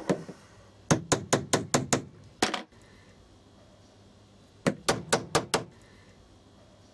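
Small hammer tapping with light, quick blows: a single knock, a run of about six taps, another knock, then a second run of five taps about two seconds later.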